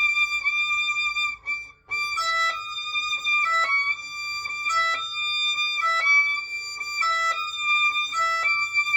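Solo violin played high up in its range. One note is held for about two seconds, then after a brief break a run of notes moves back and forth between neighbouring pitches several times. This is a small position shift being practised slowly.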